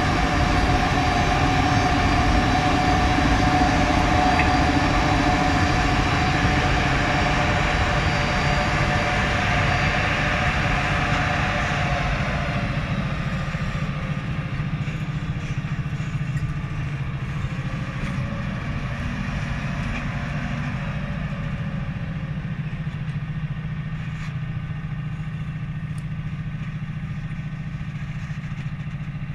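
Škoda-built BDZ electric locomotive hauling a freight train of tank-container wagons, running with a steady whine over a low rumble. About twelve seconds in, the whine fades and the rumble of the train slowly dies away as it moves off.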